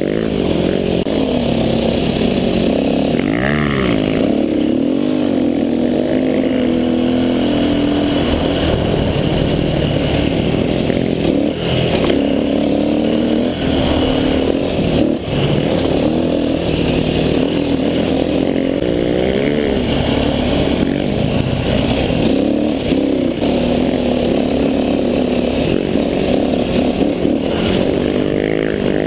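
KTM dirt bike engine running under way, its pitch rising and falling repeatedly as the throttle is opened and closed.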